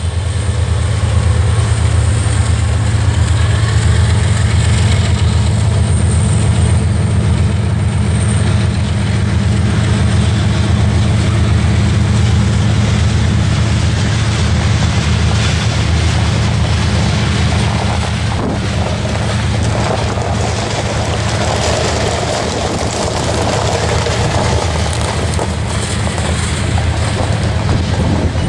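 Norfolk Southern freight train passing close by: diesel locomotives, then a long string of freight cars rolling past, with a loud, steady low rumble and wheel-on-rail noise throughout.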